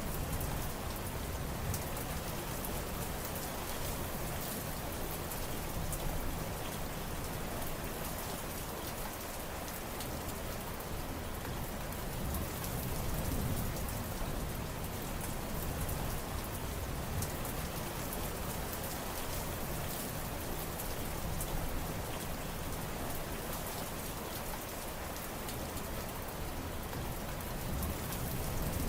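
Steady rain falling, with a dense patter of drops striking surfaces.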